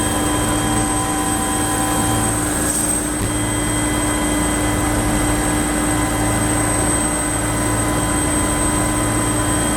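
Rescue helicopter's engine and rotor running steadily, with a constant high whine over the noise.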